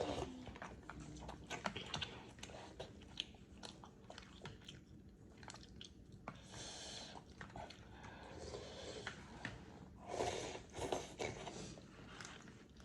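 Close-up eating sounds: chewing with many small wet mouth clicks. Twice there is a longer, hissing stretch of about a second.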